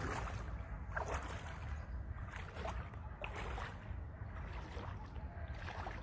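Rubber wellington boots wading through shallow lake water, a slosh with each step about once a second, over a steady low rumble.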